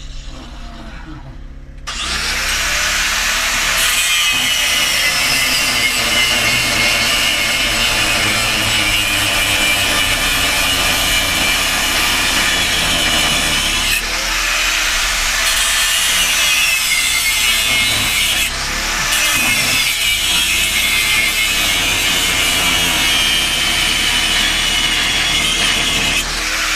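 Handheld power tool cutting through metal, starting about two seconds in and running continuously with a few brief dips.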